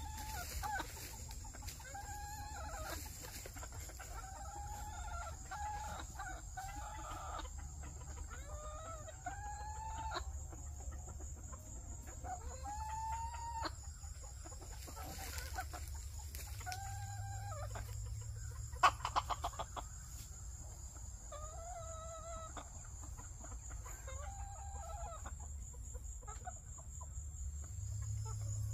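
Chickens clucking: short calls that rise and fall in pitch, one every second or two, over a steady high-pitched whine. About two-thirds of the way through there is a sharp click followed by a brief rattle.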